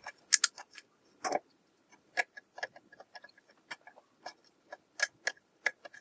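Irregular light metallic clicks and ticks, a few a second, from hookup wire and needle-nose pliers being worked against a panel-mounted BNC connector as the wire is bent and fed through the connector's contact for crimping.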